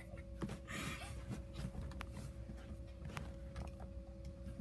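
Faint rustling and shuffling as a pug is carried and settled onto a leather couch, with a few light ticks over a steady faint hum.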